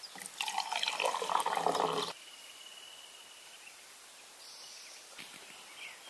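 Liquid poured from a Stanley vacuum bottle into a cup, splashing for about two seconds and then stopping suddenly.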